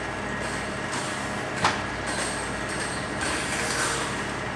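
A heavy vehicle's diesel engine running steadily, with patches of hiss and one sharp knock about a second and a half in.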